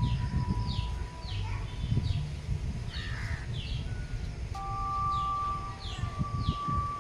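A bird calling over and over in short, falling chirps, about two a second, over a low rumble. Steady ringing tones sound underneath, changing pitch about halfway through.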